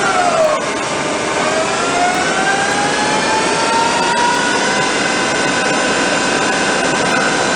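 ECL 360 CNC lathe running, its spindle drive whining over a steady rush of machining noise. The whine drops in pitch about half a second in, then climbs gradually as the spindle speeds back up, and holds steady for the rest of the time.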